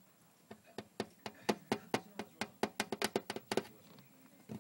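Rapid run of sharp clicks from a pet hamster, about eight a second, starting about half a second in and stopping a little before the end.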